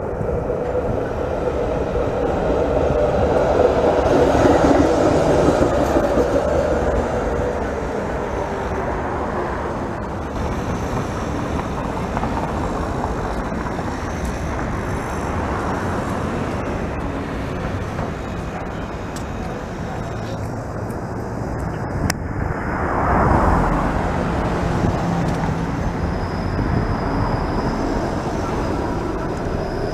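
City street traffic: cars passing and streetcars running on their rails, with a Bombardier Flexity Outlook low-floor streetcar rolling past close by near the end.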